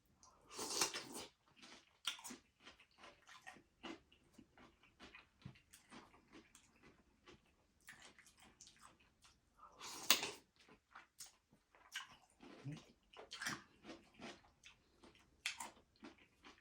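Close-miked chewing and wet mouth sounds of a person eating: many short smacks and clicks, with two louder, longer bursts about a second in and about ten seconds in.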